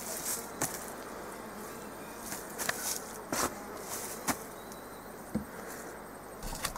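Insects buzzing steadily in the bush, with scattered light clicks and knocks from the meat bags being handled.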